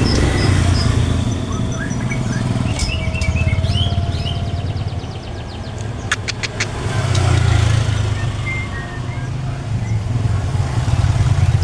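Murai songbird singing in short high whistled notes, with a rapid trill of evenly repeated notes about three to four seconds in, over a loud, steady low engine rumble. A few sharp clicks come about six seconds in.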